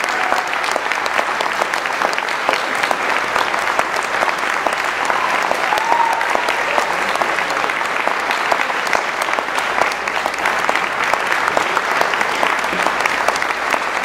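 Audience applauding, dense and steady, with a short cheer rising over the clapping about six seconds in.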